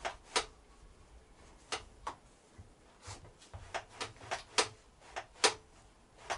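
About a dozen sharp clicks and light knocks at uneven spacing, the loudest near the end, from hands working a newly fitted heated grip on a motorcycle's throttle side of the handlebar.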